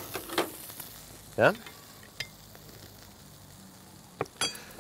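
Freshly seared hot pork tenderloin sizzling faintly in a wine, olive oil and pimentón marinade, with a few clinks of metal tongs against the bowl. A brief vocal sound comes about a second and a half in.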